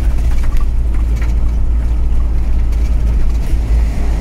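Steady low rumble of a motorhome's engine and tyres on the road, heard from inside the cab while driving, with a few faint rattles.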